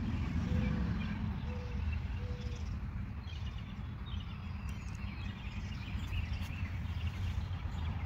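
Outdoor ambience: a steady low rumble with small birds chirping now and then.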